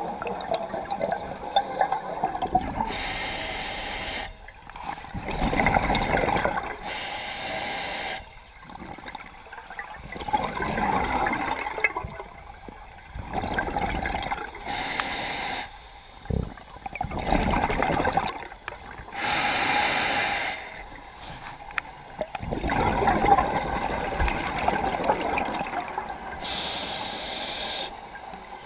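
Scuba diver breathing through a regulator underwater: five short hissing inhales, each followed by a longer rush of exhaled bubbles.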